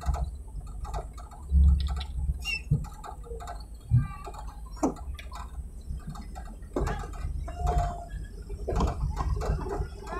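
Low rumble of a vehicle driving slowly over a rough dirt track, with scattered knocks and rattles as it takes the bumps, and two heavier thumps in the first four seconds.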